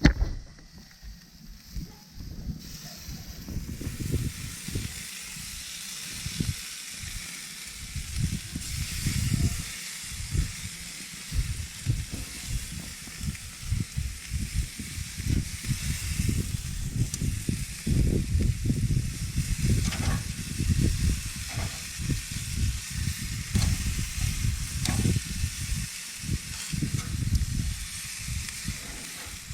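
Chicken and vegetable skewers sizzling on a grill: a steady hiss with an irregular low rumble underneath.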